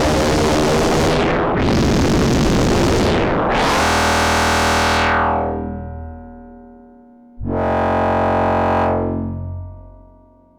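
Eowave Quadrantid Swarm hybrid synthesizer playing a step-sequenced pattern. It opens with three bright, noisy notes about two seconds apart, each growing duller. A pitched tone follows about four seconds in and fades away, then another starts near the end and fades.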